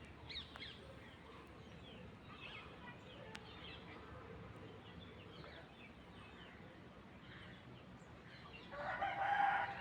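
Chickens clucking faintly, with light bird chirps scattered throughout; about a second before the end a louder chicken call sounds for roughly a second.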